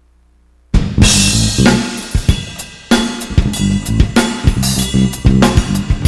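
A live rock band suddenly starts playing loud about a second in during a sound check, the drum kit to the fore: kick and snare hits in a steady rhythm under crashing cymbals and hi-hat, with low pitched notes underneath.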